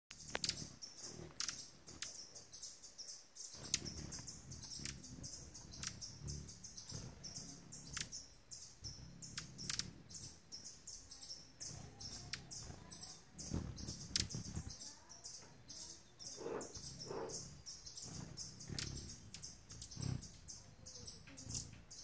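Hummingbirds at a feeder: rapid, sharp, very high-pitched chip notes repeated every half second or so, over a low whir of wings that swells as the birds hover close.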